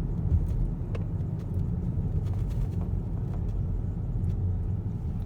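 Steady low road and engine rumble inside a moving car's cabin, with a few faint ticks.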